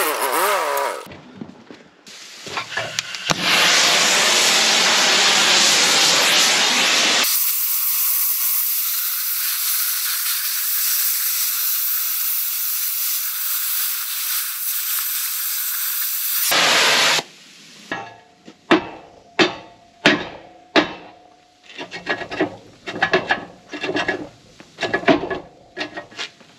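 A loud, steady rushing hiss for about thirteen seconds, its deeper part dropping away partway through so that only a high hiss is left. Then a hammer strikes steel many times at an uneven pace, some blows ringing briefly.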